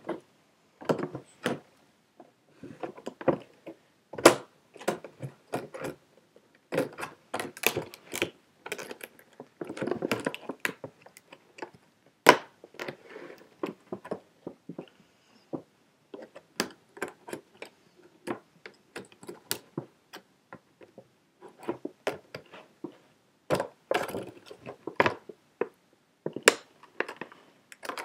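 Product packaging being cut and pulled apart by hand: an irregular run of sharp clicks, crinkles and knocks.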